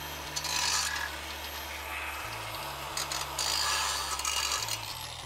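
Grinder with a grinding disc cutting at the head of an exhaust bolt: a steady high motor whine with rough grinding noise that comes and goes as the disc bites. Near the end the whine winds down as the grinder coasts to a stop.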